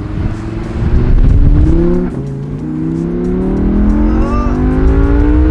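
Audi R8 V10 Plus's 5.2-litre V10 accelerating: its pitch climbs through a gear, drops at an upshift about two seconds in, then climbs steadily again.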